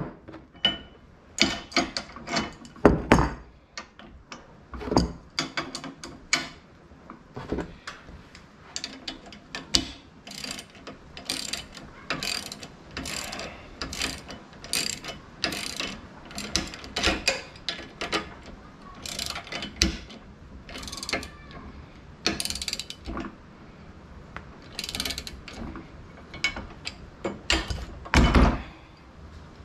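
Hand ratchet wrench clicking in short quick runs as the bolts on a steel hitch bracket are turned. There are louder metal knocks about two to three seconds in and a loud one near the end.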